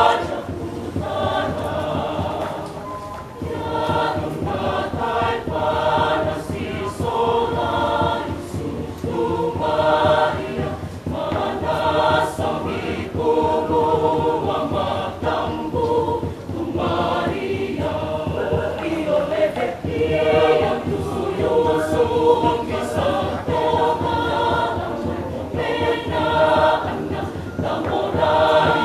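Mixed choir of women's and men's voices singing together in harmony, in short phrases.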